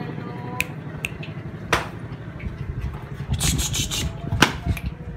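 German Shepherd dog lapping milk from a steel bowl: scattered wet clicks, with a quick run of laps about three and a half seconds in.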